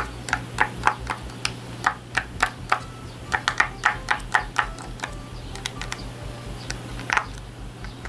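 Silicone pop-it fidget toy bubbles being pressed in with the fingertips: an irregular run of small, sharp pops, coming quicker in the middle and thinning out later.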